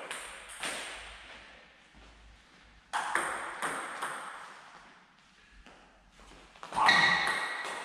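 Table tennis ball clicking off bats and table: a few scattered, ringing ball sounds at first, then a quick run of hits near the end as a rally gets going.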